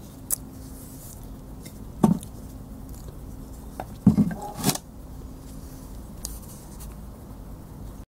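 A man's mouth noises after eating, lip smacking: a sharp click just after the start, a short low smack about two seconds in, and a cluster of several smacks between about four and five seconds in.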